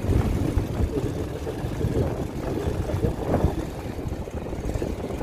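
Low, uneven rumble of a vehicle on the move along an unpaved road, with a brief louder burst about three and a half seconds in.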